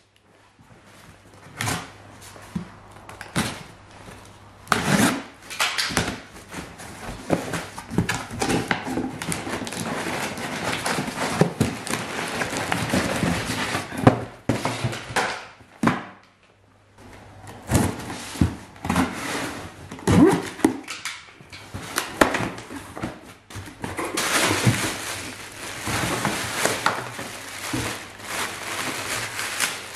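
A cardboard parcel being handled and unpacked: irregular knocks and thumps of the box on the floor, cardboard flaps scraping and rustling, then denser crinkling of plastic bubble wrap near the end as the new transmission cooler is lifted out.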